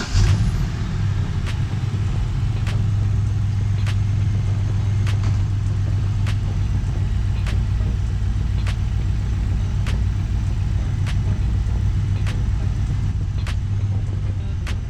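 BMW X5 4.8is's V8 engine catching with a short surge in level, then settling into a steady idle on its first start after the coolant expansion tank was replaced and the system refilled. Faint light clicks come through about once a second over the idle.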